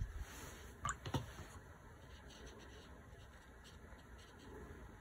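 Faint strokes and dabs of a small wet paintbrush on watercolor paper, wetting watercolor-crayon marks so they blend, with two light taps about a second in.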